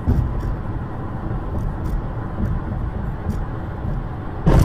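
A car driving: steady low road and engine rumble as picked up by a dashcam. A sudden, louder noise starts right at the end.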